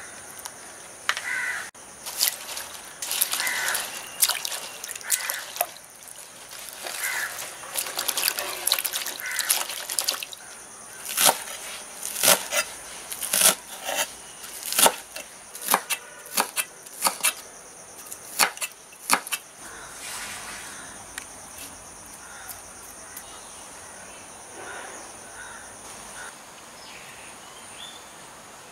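Spring onions being handled and rinsed in a bowl of water, with splashing and dripping. Then a knife chops them on a wooden board, about one sharp chop a second, before the sound settles to quiet room tone.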